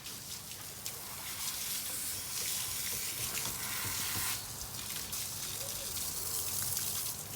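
A boat under way: a steady rush of water and wind hiss over a low engine hum.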